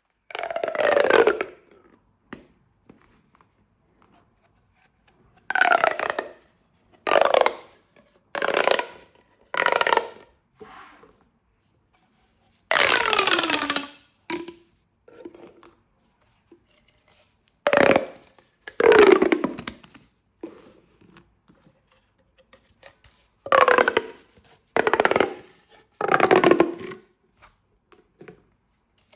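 Plastic pop tubes being stretched and compressed, each stroke a short ridged buzz that falls in pitch. There are about a dozen strokes with pauses between them.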